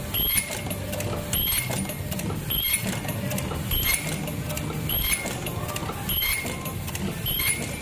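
Automatic face mask earloop welding machine running, repeating a clack and a short rising-then-falling squeal about once a second, one cycle per mask, over a steady mechanical hum.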